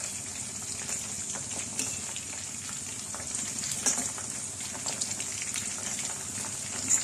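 Batter-coated chicken strips deep-frying in oil in a kadai over medium heat: a steady sizzle, with a few short clicks as the pieces are turned with tongs.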